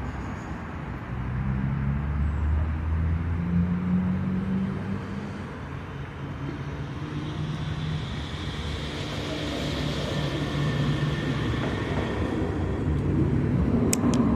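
Urban street traffic: motor vehicle engines running and passing as a steady low rumble that swells twice. A couple of sharp clicks come near the end.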